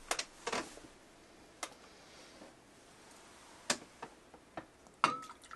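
A handful of light, uneven clicks and knocks as a teapot in a knitted cosy is picked up and handled, with a short ringing clink about five seconds in.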